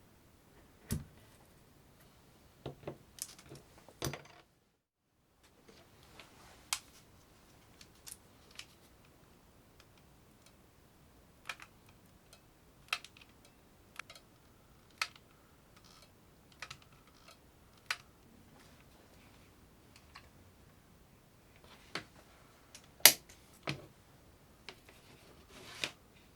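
Scattered sharp clicks and light taps of small hard objects being handled, coming irregularly every second or so, with one louder snap near the end.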